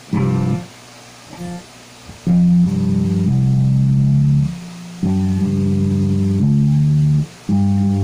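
Electric guitar played through a Boss ME-20 multi-effects floor unit with its overdrive/distortion section switched on. A short struck chord comes right at the start, then three held low notes of about two seconds each, each stopping abruptly.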